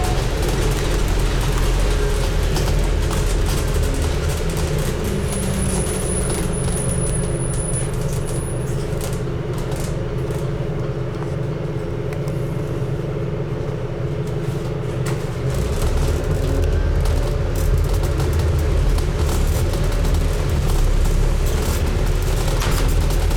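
Scania N250UD double-decker bus's diesel engine running on the road, with a steady rumble of the drivetrain and body. About two-thirds of the way in, the low engine note grows louder as the bus takes up power.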